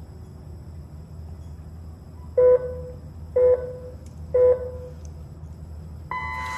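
Electronic race-start countdown signal: three short beeps about a second apart, then a long, higher-pitched start tone near the end that marks the start of the RC car race.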